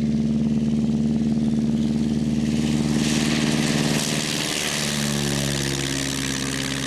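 Stampe biplane's piston engine and propeller running steadily as the aircraft taxis close past. A rushing hiss of propeller wash swells about three seconds in, and the engine's pitch drops as it goes by a second later.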